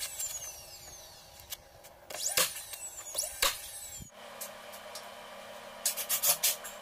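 A few sharp knocks and clicks from carpentry work with a cordless drill on a wooden frame. After about four seconds a steady low hum sets in, with a few more clicks near the end.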